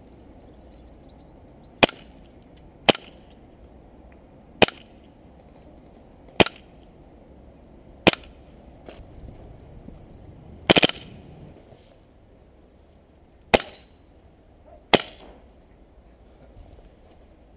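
Airsoft pistol firing about eight single shots at uneven intervals of one to three seconds, with two fired in quick succession near the middle. Each shot is a sharp crack.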